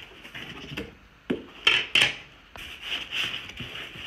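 White foam packaging insert and cardboard box being handled: scraping and rubbing as the insert is worked loose, with three sharp knocks around the middle.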